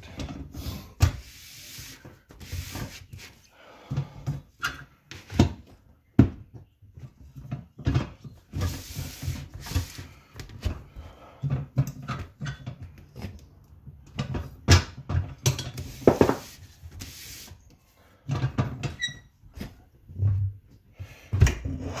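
Irregular clanks, knocks and scrapes of a motorcycle wheel and a manual tire changer being handled, with a few short rushing noises between them.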